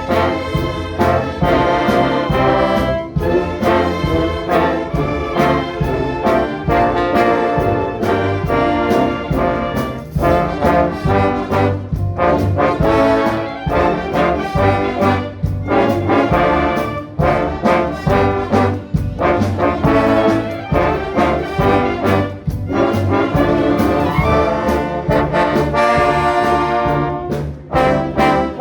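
An orchestra with a prominent brass section, trombones and trumpets, playing an instrumental Christian piece with a steady rhythmic pulse.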